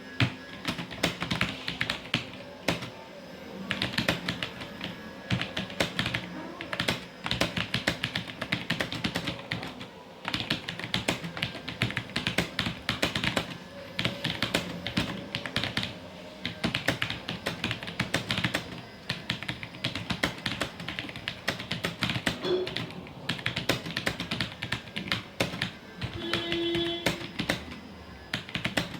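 Fast typing on a TVS Gold mechanical keyboard: rapid keystroke clicks in runs of a few seconds, broken by short pauses.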